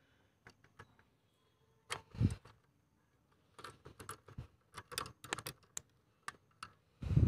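Scattered small clicks and taps of hand work on a bicycle's rear rim brake as the brake pad is taken off, with a denser run of clicks midway and a couple of dull knocks, one about two seconds in and one near the end. The pad is worn right down, which is why the rear brake has failed.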